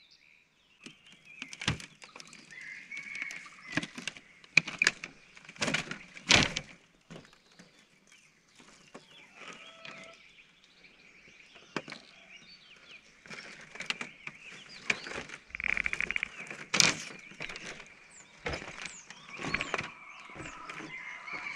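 Birds chirping and calling in open countryside, with many short knocks and rustles scattered through it.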